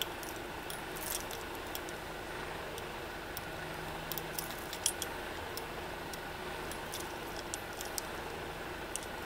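A bunch of keys on a ring with keychains jangling and clinking as it is handled and dangled, in short scattered jingles over a faint steady background hum.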